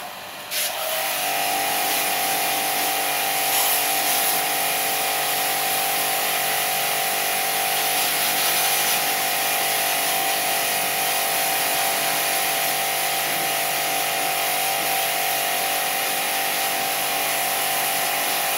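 StarQ W3 electric pressure washer kicking on as the gun is triggered, then running steadily: a high motor whine over the hiss of the water jet spraying a car's muddy bumper.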